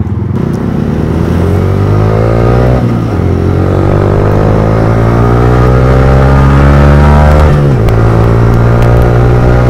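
Yamaha R15 V3's single-cylinder engine accelerating away from a near standstill, its pitch climbing through the gears with an upshift about three seconds in and another near eight seconds, then running steadily at speed.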